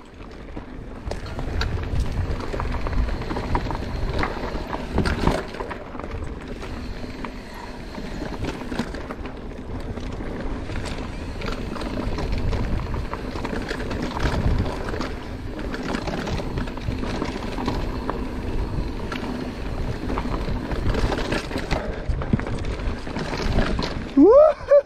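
Mountain bike riding fast down a dry, rocky dirt singletrack: tyres crunching over gravel and rocks, the bike rattling, and wind rumbling on the microphone. Near the end comes one loud, short, rising squeal.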